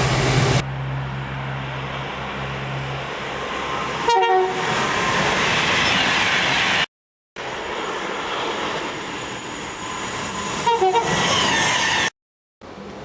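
Train horn giving short toots: one brief blast about four seconds in and three quick toots near the end, over the noise of a running train. The sound cuts off abruptly twice as one clip gives way to the next.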